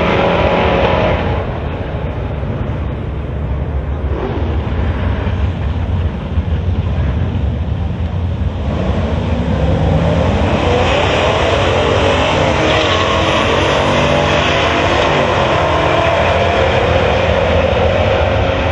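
Drag-racing cars' engines at full throttle running down the strip; the sound drops away after about a second. About halfway through, another pair launches and accelerates hard, engine pitch climbing through the gears.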